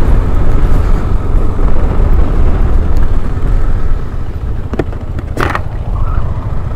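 Motorcycle riding along, its engine running under heavy low wind rumble on the microphone; the rumble eases a little about four seconds in, and two short knocks come shortly after.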